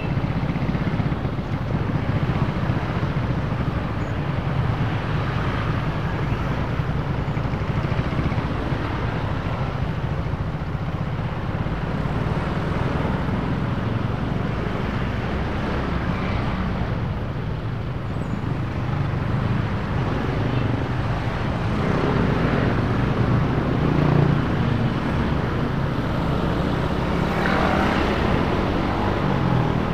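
Honda automatic scooter's engine running with a steady low hum as it creeps along in slow traffic, mixed with the engines and road noise of surrounding motorbikes and cars. It gets a little louder past the middle.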